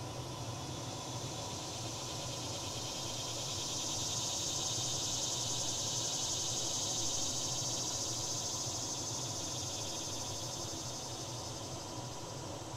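Insects droning in a high, finely pulsing chorus that swells over several seconds and then fades, over a steady low background hum.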